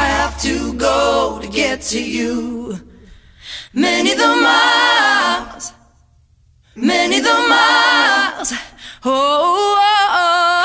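Music: a song sung by voices with little or no accompaniment, in phrases broken by two short pauses about three and six seconds in.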